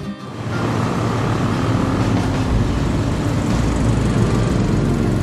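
Road traffic at a bus terminal: a bus engine running and a motorcycle passing close by, with a low engine rumble that grows heavier about two and a half seconds in.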